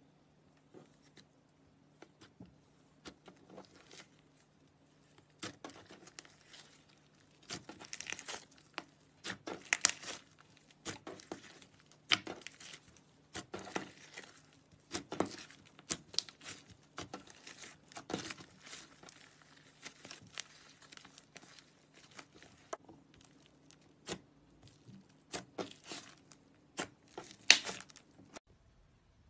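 Slime being squished, stretched and pulled apart by hand, giving irregular crackling and popping sounds that grow busier from about seven seconds in. A faint steady low hum runs underneath.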